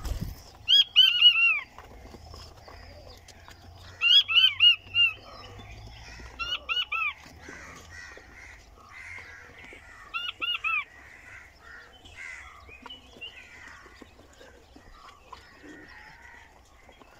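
Chinese button quails calling: four bursts of three to five high, piping notes, the loudest about a second in and about four seconds in, with soft twittering between them.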